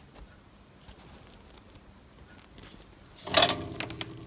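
Soldering iron handpiece pulled out of its coiled steel-spring holder: a loud metallic scrape and rattle about three seconds in, the spring ringing on for about a second, with a few light clicks after.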